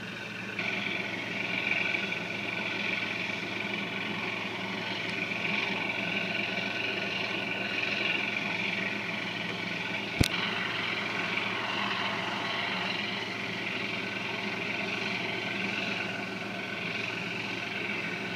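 Steady engine drone from a shirasu fishing boat motoring into the harbour, with one sharp click about ten seconds in.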